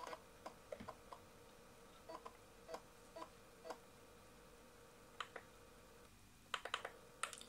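Faint, scattered clicks of a laptop's pointer buttons, some in quick pairs like double-clicks, as folders are opened and scrolled in Windows 95. Underneath is a faint steady hum that stops about six seconds in.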